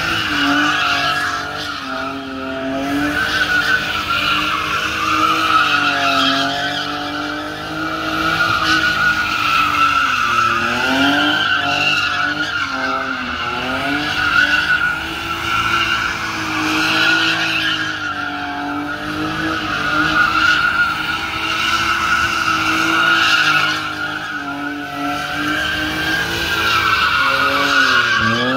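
A car spinning donuts: its tires squeal without a break while the engine revs rise and fall over and over.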